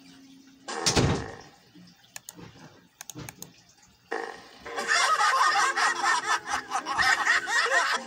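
Cartoon soundtrack played through a computer's speaker. A sudden loud thud comes about a second in, then a few faint clicks, and from about four seconds a busy mix of cartoon voices and sound effects.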